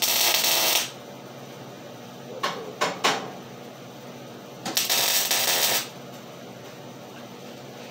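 Two short arc-welding tack welds on a steel panel, each a crackling hiss lasting about a second, one right at the start and one about five seconds in. A few sharp metal clicks fall between them.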